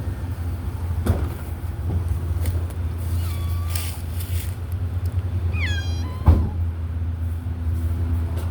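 A trapped feral cat meowing twice, high and falling, about three and a half and five and a half seconds in, over a steady low hum from an idling vehicle engine. A sharp knock comes just after the second meow.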